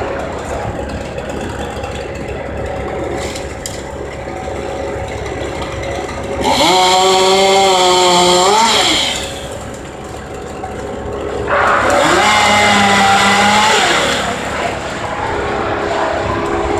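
Gas chainsaw revved up to full speed twice, each burst about two and a half seconds long, falling back between them, over a steady engine drone.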